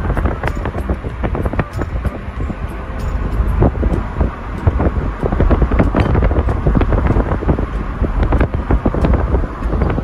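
Car driving along a road, heard from inside: a steady low rumble of road and engine noise, with wind buffeting the microphone and crackling over it.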